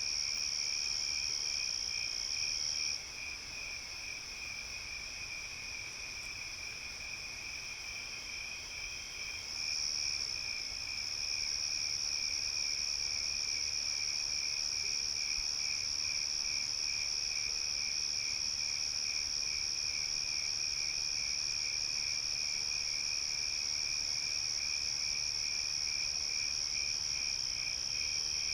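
Night chorus of crickets: a steady high-pitched trill over a lower, rhythmically pulsing chirp. The high trill drops out about three seconds in and comes back around ten seconds in.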